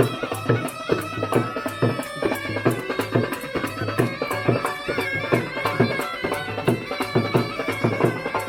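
Snake charmers' been (pungi) playing a reedy, nasal melody over a steady drone, with hand drums beating a fast, even rhythm of about three strokes a second.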